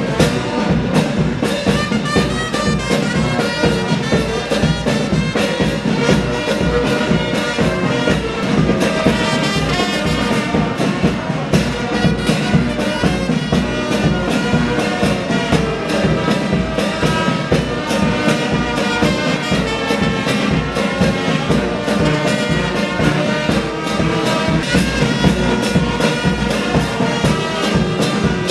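Brass band music with a steady drum beat.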